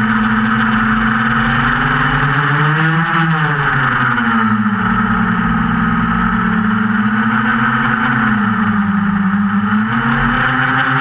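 QAV400 quadcopter's four brushless motors and 8-inch props running in fast flight, heard from the onboard camera. Their pitch swells up and back down about three seconds in, dips around nine seconds, and climbs again near the end as the throttle changes.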